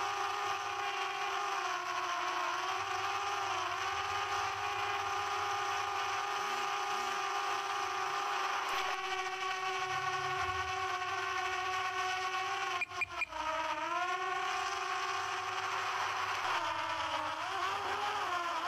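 Quadcopter drone propellers humming steadily, the pitch dipping and recovering several times as the motors change speed, with a brief break about two-thirds of the way through.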